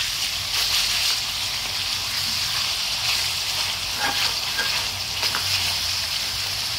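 Pork cutlets coated in minced lemongrass sizzling steadily as they fry in oil in a metal wok. A few light clicks come about four and five seconds in, as chopsticks turn the pieces.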